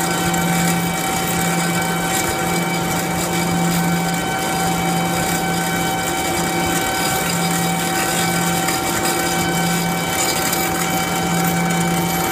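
Steady hum of running machinery: an even noise with several fixed tones, and a low hum that wavers in and out every second or two.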